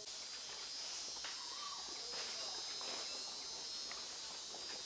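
Steady high-pitched insect chorus with a held whine, with scattered twig snaps and rustling of undergrowth.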